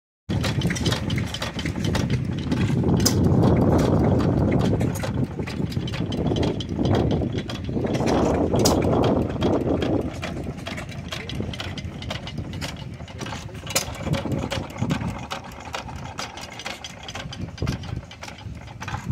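Several antique hit-and-miss stationary gas engines running together, a dense, uneven run of popping exhaust beats as each one fires and coasts on its flywheels. A heavier rumble swells under the pops in the first half.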